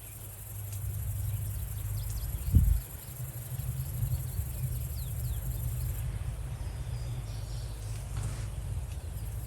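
Field insects making a steady high-pitched chirring that fades about six seconds in, over a constant low rumble, with one dull bump about two and a half seconds in.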